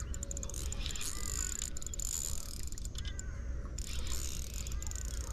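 Spinning fishing reel clicking irregularly as line is worked during a fish fight. A bird calls in short phrases every second or so, over a steady low rumble.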